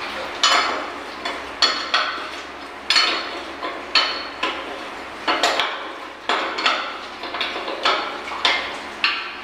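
Irregular sharp metallic clinks and clanks, roughly one a second and some in quick pairs, each ringing briefly: metal tools and hoist chain striking a steel pipe flange during work on the joint.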